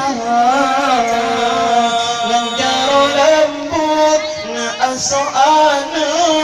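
A man singing a slow, ornamented melody with long held notes and pitch turns through a microphone, over sustained accompaniment notes.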